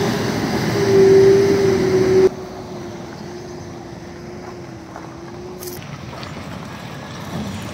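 Vehicles driving past on a loose gravel road: tyre and engine noise with a steady drone. The sound is louder at first and drops suddenly a little over two seconds in to quieter passing traffic.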